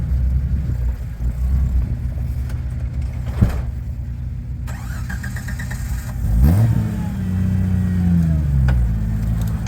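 Off-road truck engine running steadily, then revving up about six seconds in, its pitch rising and falling over the next few seconds. A single sharp click sounds about three and a half seconds in.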